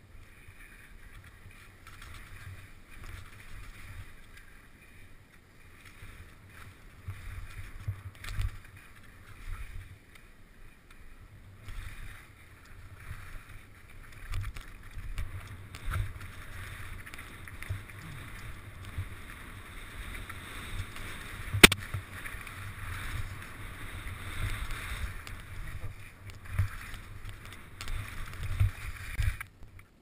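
Skis sliding and turning on snow, a steady swishing hiss with irregular low rumbles and bumps on the helmet-mounted camera, and one sharp knock a little past two-thirds of the way through.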